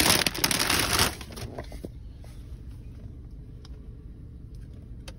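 Paper bag rustling and crinkling as a hand reaches into it, stopping about a second in; after that only a low steady hum inside the car, with a few faint clicks.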